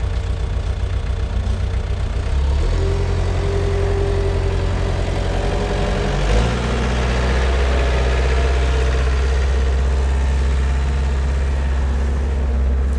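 Cat 262 skid steer's turbo diesel engine running; about two and a half seconds in it picks up speed, with a steady whine over it for a few seconds, and a little after six seconds it settles into a deeper, heavier drone after a short bump.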